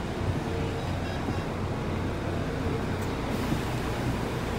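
City bus engine running, a steady low hum with cabin noise heard from inside the bus.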